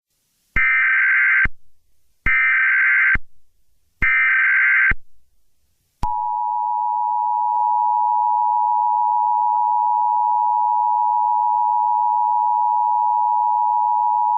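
Emergency Alert System tones: three short bursts of warbling digital SAME header data, each just under a second, followed by the steady two-tone EAS attention signal, which runs for about eight seconds.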